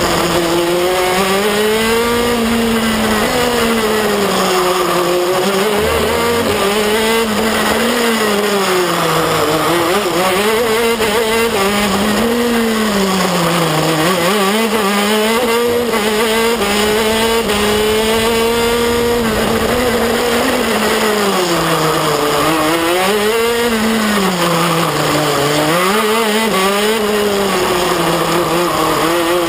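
KZ2 shifter kart's 125 cc single-cylinder two-stroke engine at racing speed, heard on board: the revs climb hard on the straights and drop back for the corners, over and over through the lap.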